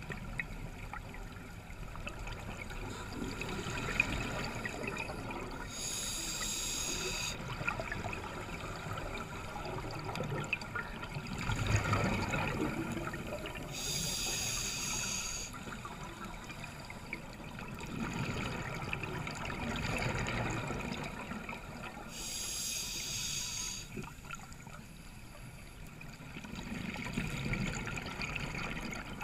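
Scuba diver breathing through a regulator underwater: a high hiss with a faint whistle about every eight seconds as air is drawn in, and bubbling and gurgling of exhaled air between the breaths.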